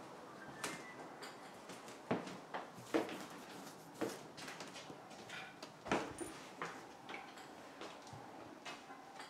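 Footsteps on a hard floor with scattered knocks and creaks, about one step a second.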